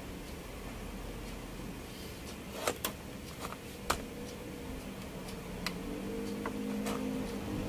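A few sharp light clicks of multimeter probe tips tapping against the circuit board and its components, over a low steady hum.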